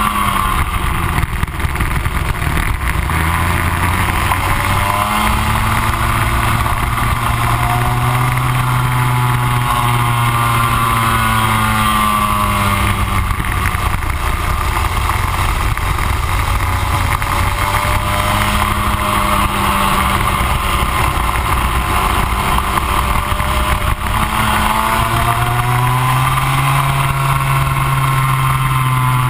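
Rotax Max 125 single-cylinder two-stroke kart engine heard onboard at racing speed. Its pitch climbs and falls several times as it revs up along the straights and drops off into the corners.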